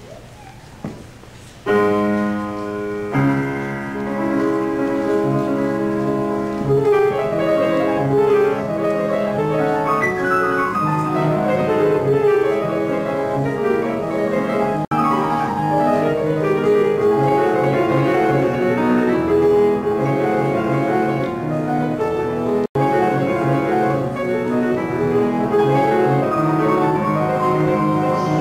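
Grand piano played solo: after a short hush, the piece opens about two seconds in with a held chord, then runs on as a continuous flowing melody over chords. The recording drops out for a split second twice.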